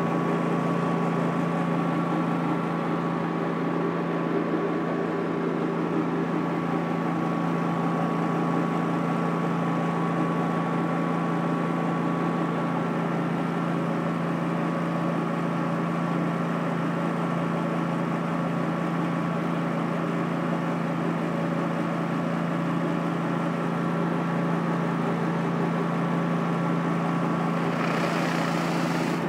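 Pressure washer engine running at a steady drone, with the hiss of water spraying from a surface cleaner onto concrete. The hiss grows louder near the end as the cleaner comes close.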